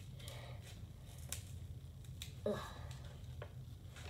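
Scissors cutting through paper: several separate snips, spaced irregularly.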